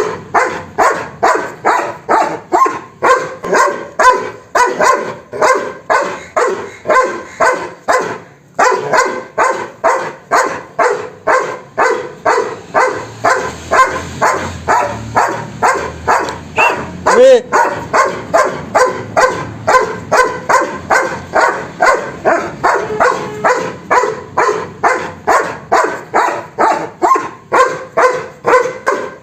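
A dog barking steadily and repeatedly, about two barks a second, with a brief pause about eight seconds in.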